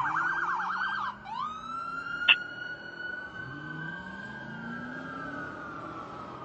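Fire engine's electronic siren going from a rapid yelp to a slow wail that rises, then slowly falls. A short, loud blast comes about two seconds in, and the truck's engine rises in pitch as it accelerates.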